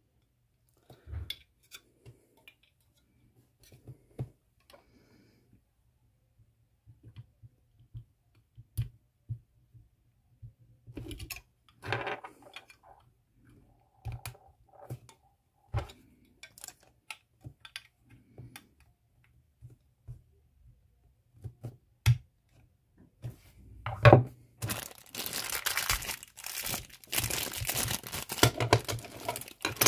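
Scattered small clicks and taps of a plastic model airliner and its stand being handled and fitted together. Near the end, loud, dense crinkling of a clear plastic wrapper being handled and pulled apart.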